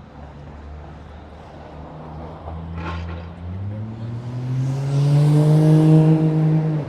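A motor vehicle engine accelerating hard close by: its note climbs in pitch, holds high and loud, then cuts off suddenly near the end.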